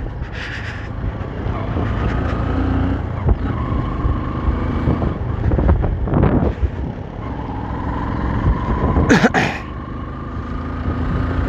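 Motorcycle being ridden along a road: engine running with a steady low wind rumble on the microphone, and a brief loud rush of noise about nine seconds in.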